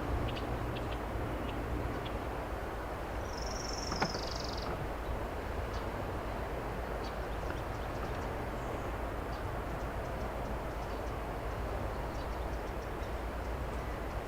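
Steady low rumble of a distant excavator's diesel engine at work. A bird gives one high, drooping call about three seconds in, and there is a single sharp click at about four seconds.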